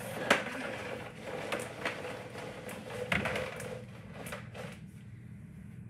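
Plastic clicks and knocks from a Bissell PowerGroom Helix upright vacuum being handled as its power cord is unwound, with a sharp click just after the start and more near two and three seconds in; the vacuum's motor is not running.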